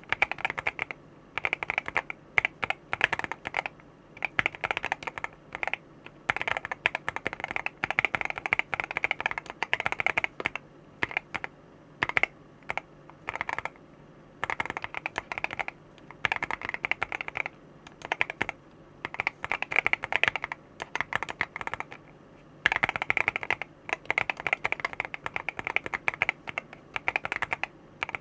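Mechanical keyboard with HUANO ZO HE Hall-effect magnetic switches, an FR4 plate in a silicone-gasket-mounted Able Studio Nas60 case and KBS 1950s keycaps, being typed on: bursts of rapid keystrokes separated by short pauses.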